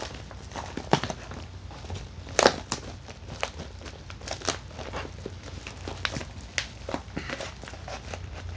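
Plastic packaging bag crinkling and crackling irregularly as it is pulled and worked at to break its strong adhesive seal, with one sharper crackle about two and a half seconds in.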